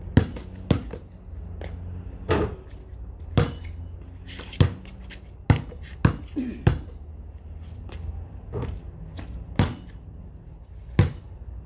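Basketball thudding on a concrete pad during shooting practice, about a dozen separate bounces at uneven intervals, over a low steady hum.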